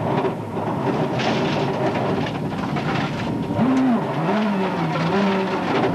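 Onboard sound of a World Rally Car at speed: its turbocharged four-cylinder engine revs up and down through the corners over steady road and tyre noise. The engine pitch rises and falls sharply about four seconds in.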